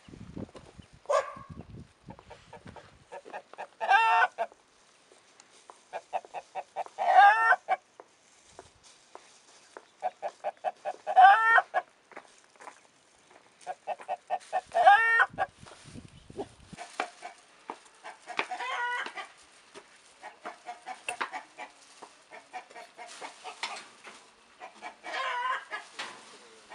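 Hen cackling: runs of quick clucks, each building to a drawn-out, wavering call, repeated every three to four seconds.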